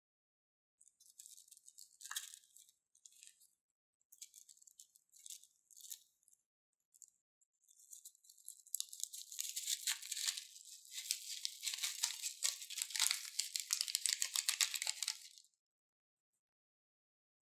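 Slime being squeezed and worked by hand, giving a crackle of many tiny clicks and pops. It comes in short scattered bursts at first, then becomes a dense, continuous crackle for about six seconds before stopping suddenly.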